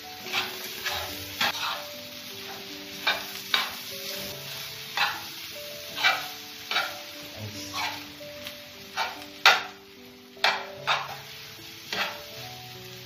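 Spatula scraping and knocking against a large metal frying pan while stirring sizzling minced bopis meat, in irregular strokes about once a second; the loudest knock comes a little past the middle.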